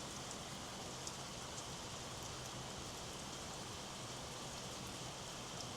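Steady rain falling: an even hiss with a few faint drip ticks.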